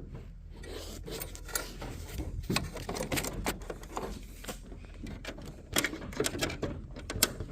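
Cable rubbing and scraping as it is worked through a tight hole, with scattered clicks and knocks.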